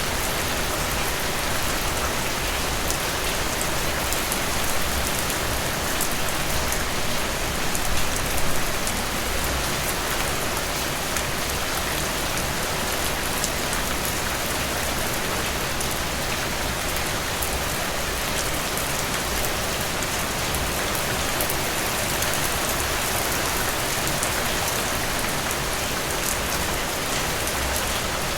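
Steady rain falling, an even hiss of many drops with fine pattering on a surface.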